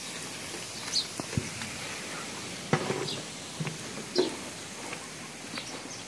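Outdoor ambience: a steady hiss with scattered short, high bird chirps and a few brief knocks, the loudest near the middle.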